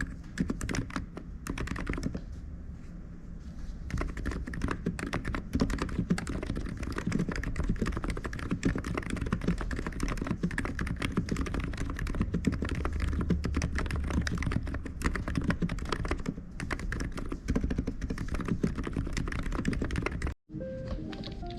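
Typing on an ABKO KN30BT keyboard: a fast, continuous patter of keystrokes that cuts off sharply about twenty seconds in. Music with short pitched notes starts right after.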